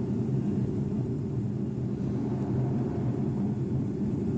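Steady drone of a civilian airliner's engines and airflow heard from inside the cockpit through a mobile phone's microphone, deep and unchanging.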